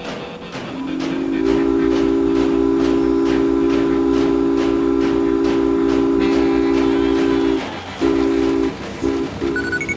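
Train whistle sounding a chord of several notes: one long blast that rises into pitch about a second in and holds for about six seconds, then three short blasts. Under it runs a rhythmic train clatter, about three beats a second.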